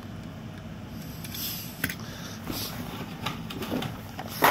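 Rustling and sharp clicks of packaged toy cars being handled and rummaged through in a storage box, over a steady low hum; the loudest click comes near the end.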